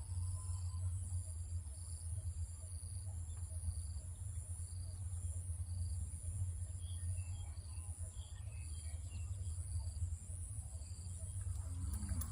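Insects trilling in a steady high-pitched chorus, some in short repeated pulses, over a constant low rumble.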